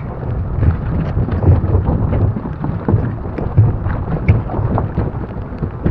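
Wind buffeting the microphone of a bicycle rider's camera in the rain, a steady low rumble with many irregular knocks and thumps.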